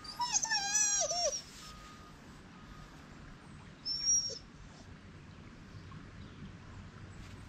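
A dog whining: one high, wavering whine lasting about a second right at the start. A short high chirp follows about four seconds in.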